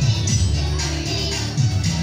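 Christmas carol backing music with a steady beat, percussion striking about twice a second.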